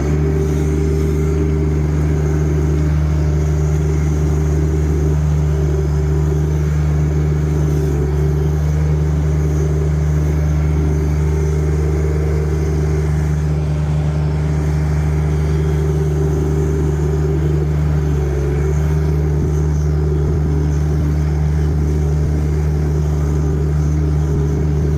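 Dingo compact utility loader's engine running steadily under load while it pushes stump grindings and debris, with a brief dip in engine speed about three quarters of the way through.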